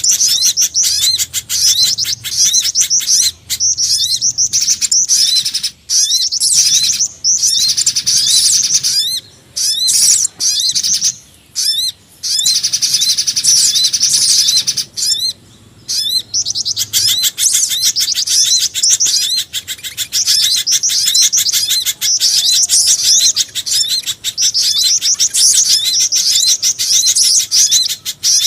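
Bird-luring call recording of small forest birds: spiderhunter (pijantung gunung), sogon and black-winged flycatcher-shrike (jingjing batu) calls mixed together. It plays as dense, high-pitched chirping and rapid trills, broken by several short pauses in the first half, then continuous.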